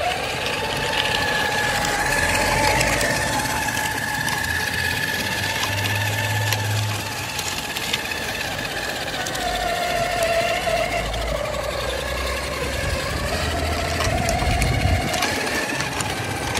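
Traxxas X-Maxx RC truck's brushless electric motor whining steadily as it drives at part throttle, the pitch dropping about ten seconds in and rising a little again toward the end.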